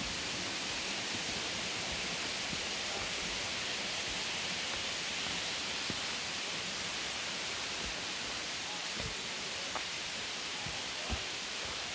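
Steady rushing hiss of a waterfall's falling water, with a few faint soft knocks in the second half.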